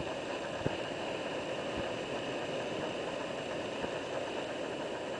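Steady roar of ocean surf: waves breaking and whitewater foaming over the rocks. A sharp click comes about two-thirds of a second in.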